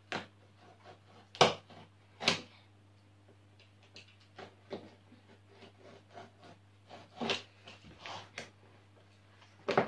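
Cardboard mailing box being pried and worked open at its end: a series of separate sharp cracks and knocks from the cardboard, the loudest about one and a half and two and a half seconds in, over a faint steady low hum.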